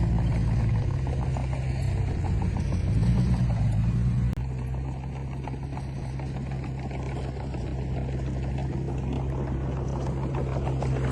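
Diesel engine of heavy earthmoving machinery running, its pitch and level wavering under load. About four seconds in there is a sharp click and a sudden drop, after which it runs as a steadier, slightly quieter drone.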